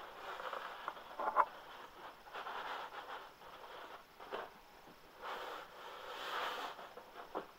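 Cardboard boxes being handled: a white inner box scraping and sliding against its brown cardboard outer box in several stretches of about a second, with a few short knocks in between.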